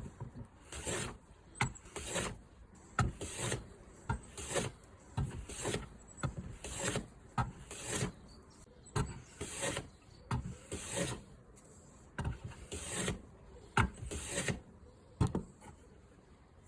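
Hand plane with the chip breaker removed and its blade turned over for a 75-degree cutting angle, the setup meant to stop tear-out, taking repeated strokes along a board: a quick series of short scraping rasps, a little more than one a second, some opening with a sharp click.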